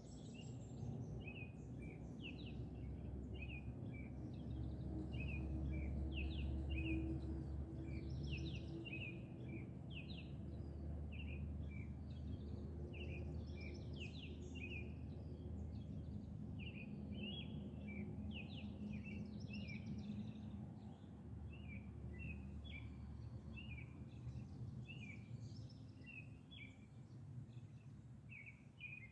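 Small birds chirping rapidly and continuously, several short high chirps a second, over a steady low rumble that swells a few seconds in.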